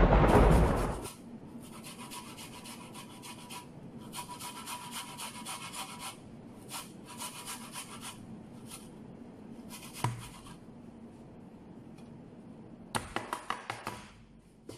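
Fresh ginger rubbed up and down a stainless steel box grater, a steady series of raspy scraping strokes. It opens with about a second of loud low rumbling noise, and near the end there is a quick run of sharp knocks.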